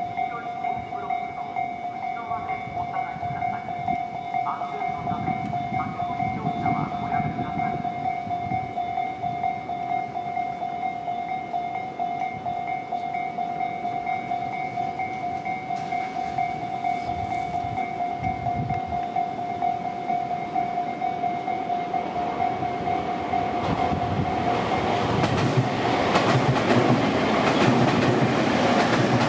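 Japanese level-crossing warning bell ringing a steady high-pitched 'kan-kan' alarm. About 24 seconds in, an electric Tobu Tojo Line train arrives and runs through the crossing, its wheels and running noise growing loud and drowning out the bell.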